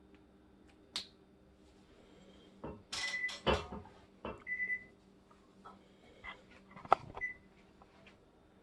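Scattered clicks and knocks of things being handled, a short rustle about three seconds in, and a few brief high beeps, one just after the middle; the loudest knock comes near the end.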